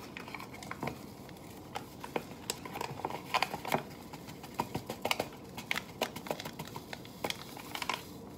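Paper Swiss Miss hot cocoa packets crinkling and rustling as they are torn open and shaken out over mugs, in irregular small crackles and ticks.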